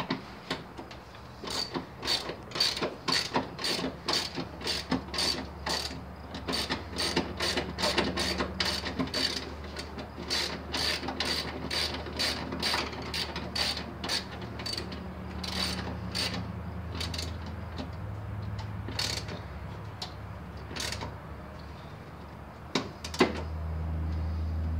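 Hand ratchet clicking in quick runs of strokes, about three clicks a second, as a fastener on the blower-motor ground connection is tightened. The clicking thins out near the end, and a low steady hum comes up in the second half.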